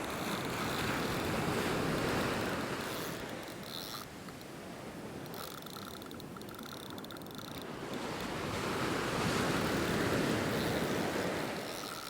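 Surf washing onto the beach: two waves swell up and fade away, the first in the opening seconds and the second about eight seconds in.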